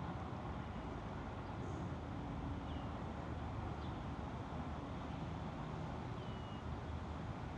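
Steady hum of distant road traffic with a few faint, short bird chirps.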